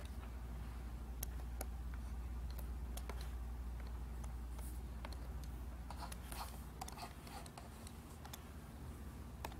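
Light taps and clicks of a stylus on a Huion Kamvas GT-191 pen display's screen, scattered through, with a quick run of them about six seconds in, over a steady low hum.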